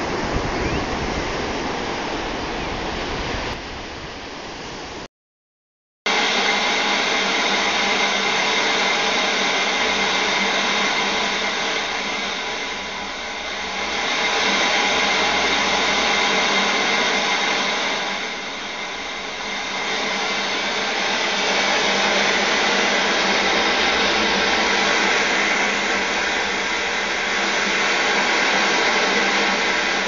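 For about five seconds, surf breaks on a beach. After a second of silence, loud, steady static hiss like white noise takes over and slowly rises and falls a few times.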